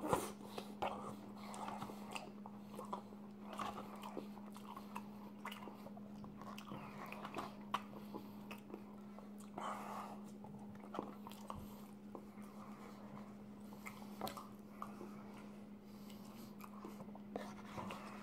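Close-up eating sounds: biting and chewing mouthfuls of McDonald's poutine, with small wet clicks and smacks, over a steady low hum.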